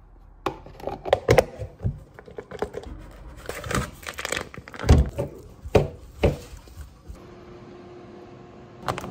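Kitchen food-prep handling: plastic bag crinkling and irregular knocks and clatter of plastic containers on a cutting board and steel sink, with one heavy thud about five seconds in. From about seven seconds on, a steady low hum.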